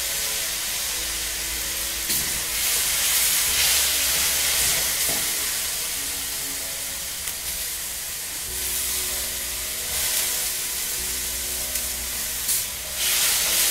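Chicken and broccoli sizzling in a hot oiled non-stick wok as they are stir-fried. The hiss runs steadily and swells louder from about two to five seconds in and again near the end.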